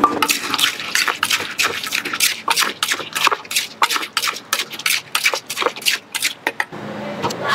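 Wooden pestle pounding wet, saucy salad ingredients in a Thai clay mortar, with a spoon turning the mix: a quick, uneven run of wet knocks, about four a second, that stops near the end.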